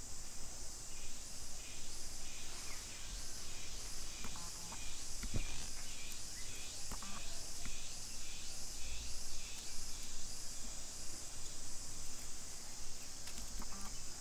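Steady high-pitched drone of insects in the forest, pulsing regularly about one and a half times a second. A brief knock comes about five seconds in.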